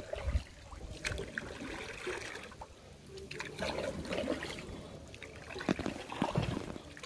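Water trickling and lapping around a moving kayak, with dripping from the paddle blades and a few light knocks.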